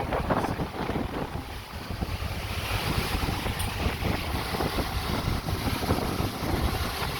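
Wind buffeting the microphone over the steady rush of choppy water around a moving boat.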